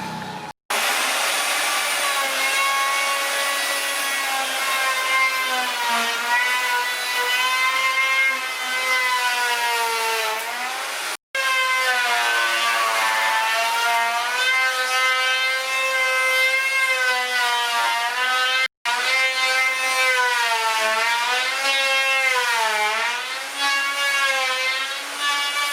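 Electric power tool motor running through wood, its steady whine sagging in pitch and recovering again and again as the cut loads and unloads it. The sound breaks off abruptly for an instant three times.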